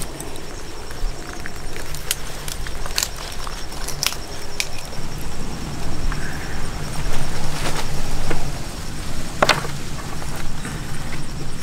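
Cooked banana-leaf wrapping and its twine ties being pulled open by hand: rustling with scattered sharp crackles and snaps, over a steady low hum.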